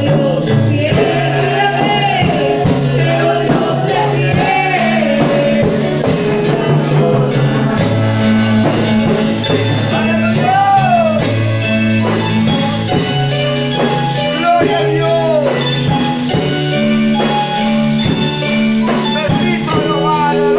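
Live church worship band playing: a woman sings the lead melody over electronic keyboards and a drum kit.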